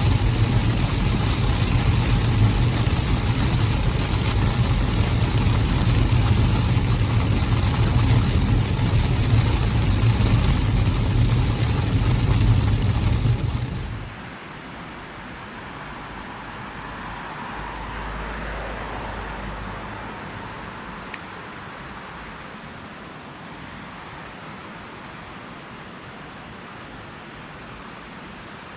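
Steady road and engine noise of a car driving, with a low hum underneath. It cuts off suddenly about halfway through, leaving a quieter, steady rushing hiss.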